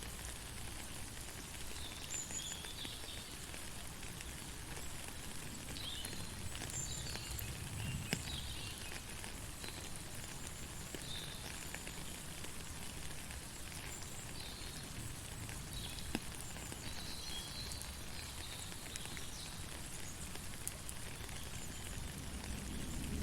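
Rain falling steadily, with scattered sharp drop ticks and short high-pitched animal chirps coming and going throughout.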